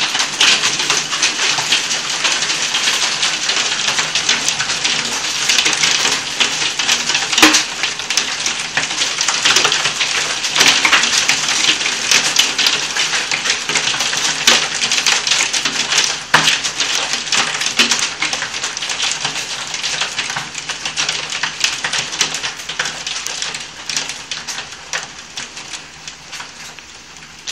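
Hailstorm with heavy rain, heard from indoors through a window: a dense, steady clatter of hailstones striking the glass and outside surfaces, with a few louder single hits, easing off near the end.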